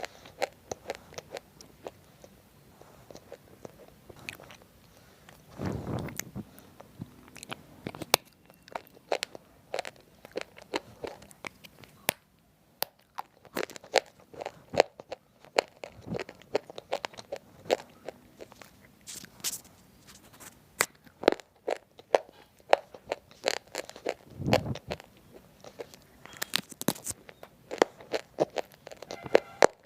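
Close-up crunching and chewing of roasted multani mitti (Fuller's earth clay) chips: a continuous run of sharp, crisp snaps and crackles. Two duller, heavier bites come at about 6 seconds and about 24 seconds.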